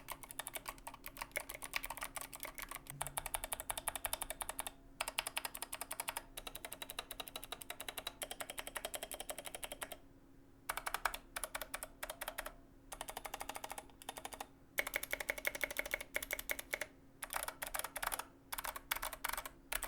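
Fast typing on a GK61XS aluminium 60% mechanical keyboard with clicky Kailh Box Heavy Pale Blue switches and Maxkey SA keycaps: dense runs of key clicks broken by short pauses, the longest about ten seconds in.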